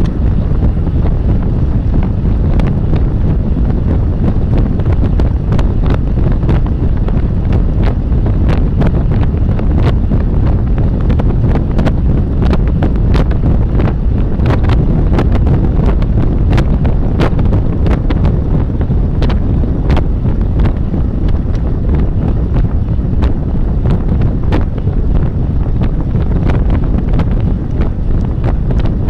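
Steady, loud wind buffeting the microphone of a bike-mounted camera on a road bike riding at race speed in a pack, with many scattered sharp clicks throughout.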